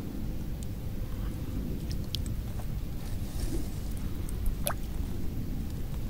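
Lake water sloshing and dripping around a landing net held in the margin as a carp swims out of it on release, over a steady low rumble, with a few sharp drips.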